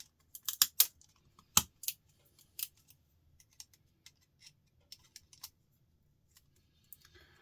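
Hard clicks and knocks of hand tools and small parts being handled while a light fixture is taken apart: a quick run of clicks in the first second, a louder knock at about one and a half seconds, then scattered lighter ticks.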